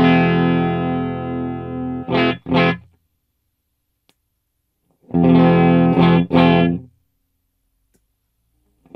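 Electric guitar with humbuckers played through a Tone City Golden Plexi overdrive pedal, a Mooer Baby Bomb 30-watt amp and a miked 4x12 cabinet. It plays a held distorted chord and then two short chord stabs, and repeats the phrase after a pause of about two seconds.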